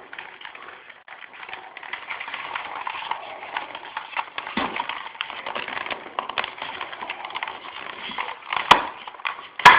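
A wire phone mount being bent and worked on a plastic bicycle helmet: continuous scraping and crackling with many small clicks, and two sharp clicks near the end.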